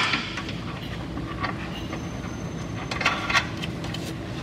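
Metal parts and hand tools clinking and clicking as the rear sway bar end link is fitted under the car, with a short cluster of clicks about three seconds in, over a steady shop hum.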